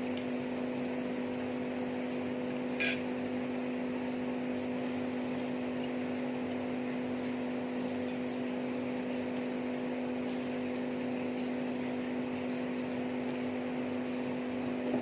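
A steady machine hum holding one low pitch, with a single faint click a little under three seconds in.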